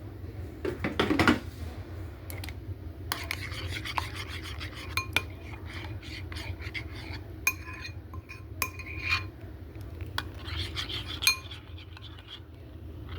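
Plates and cutlery clattering and clinking as food is served, with scraping and several short ringing clinks in the second half, over a steady low hum.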